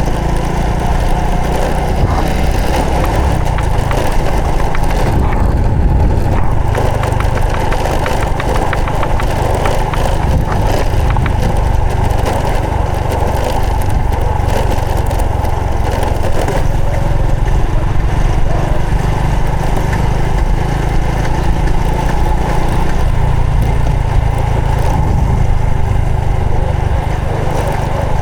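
Honda Supra X 125 FI motorcycle's single-cylinder four-stroke engine running steadily while being ridden.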